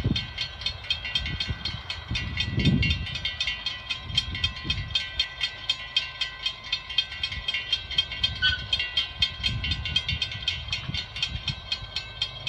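Railroad grade-crossing warning bells ringing in a fast, even stream of strikes as the crossing gates lower, signalling an approaching train. A low rumble comes and goes underneath, strongest about three seconds in.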